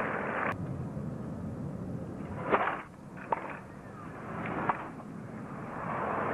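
Tennis ball struck by rackets in a rally: a few sharp pocks about a second or so apart, the loudest about two and a half seconds in, over a low crowd murmur. A burst of crowd noise cuts off abruptly about half a second in.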